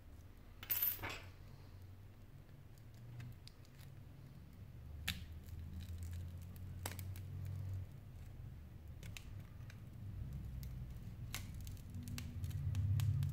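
Small clicks and scrapes of fingers and a metal pry tool working the display glass loose from a Sony Xperia Z5's frame: a short scraping crackle about a second in, then scattered sharp clicks over a low rumble.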